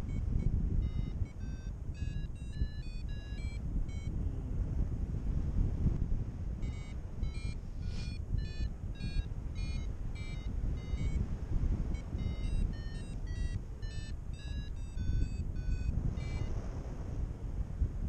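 Wind rumbling over the microphone in flight, with a paragliding variometer beeping in runs of short tones whose pitch steps up and down, pausing now and then; a variometer beeps like this when the glider is climbing.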